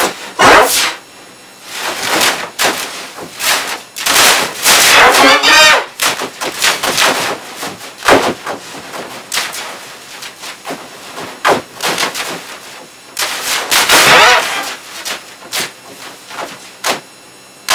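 A boy screaming and banging on a computer keyboard in loud, irregular outbursts with sharp strikes between the yells. The audio is put through the pitch-shifted, harsh 'G major' effect chain.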